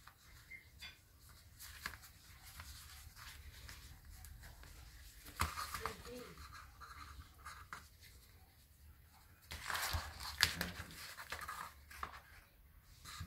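Handling noise of a leather wallet being turned over and folded open in the hands: soft rustles and light clicks, with louder rustling about five and a half seconds in and again around ten seconds in.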